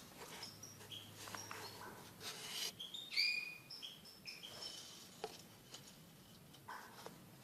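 Fischer's lovebirds chirping in short, high calls, the loudest a little over three seconds in, with scattered light clicks among them.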